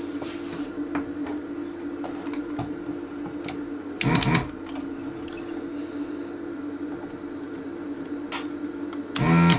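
Steady low electrical hum with scattered light clicks and taps of tools being handled on an electronics workbench. Two brief louder bursts come about four seconds in and just before the end.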